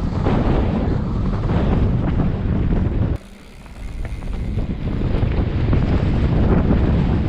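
Wind rushing over a helmet-mounted GoPro microphone as a downhill mountain bike runs fast over dry dirt, with tyre crunch and the bike rattling over bumps. About three seconds in the noise drops away sharply, then builds back up over a second or so.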